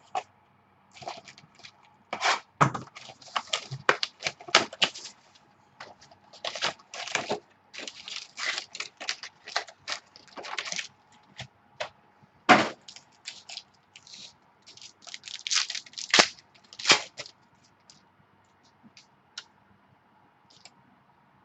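Baseball card packs being handled and opened: irregular crackling, tearing and sharp clicks of wrapper and cards, with a few louder snaps.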